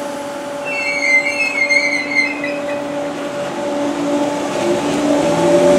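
Merseyrail Class 508 electric multiple unit pulling into a platform with a steady electric hum. A high squeal starts about a second in and lasts about two seconds. From the middle on, a lower whine drops in pitch and the train grows louder as it slows alongside.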